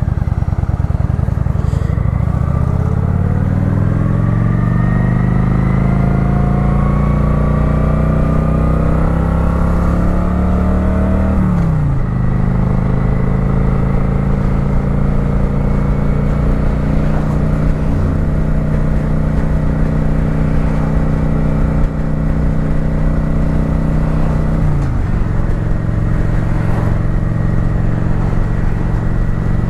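Kawasaki Vulcan 900 V-twin motorcycle engine pulling away: its note climbs steadily for about ten seconds, drops at an upshift about twelve seconds in, then holds a steady cruise, with another brief dip in pitch about twenty-five seconds in.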